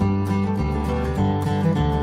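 Background music: strummed acoustic guitar over a steady bass line.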